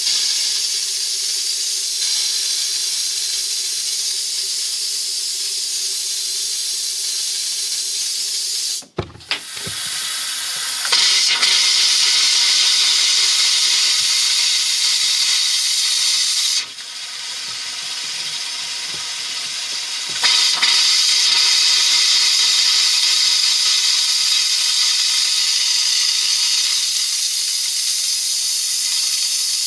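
Compressed air hissing out of an open RV water outlet as the plumbing lines are blown out to expel water for winterization. The hiss cuts off briefly just before 9 seconds in and comes back louder about two seconds later. It drops at about 17 seconds and grows louder again at about 20 seconds.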